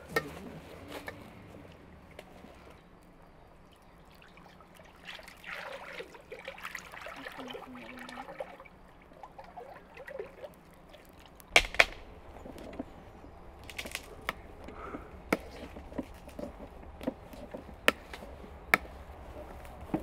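Cooking oil poured from a plastic bottle into a pot over a wood fire, with scattered sharp clicks and knocks, the loudest a pair about halfway through.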